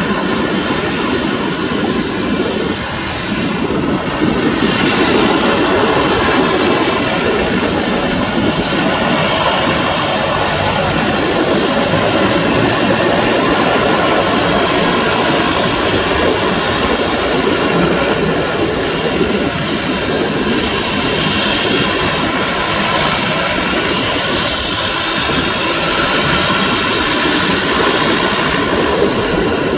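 Twin-turboprop floatplane, a de Havilland Canada DHC-6 Twin Otter on floats, running its engines as it taxis on the water after landing. A steady engine drone carries a high turbine whine that slowly drifts up and down in pitch, and it grows louder about four seconds in as the plane comes closer.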